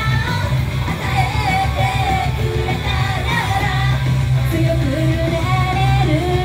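Japanese idol group's female voices singing a melody live over loud pop-rock music with a heavy, steady bass.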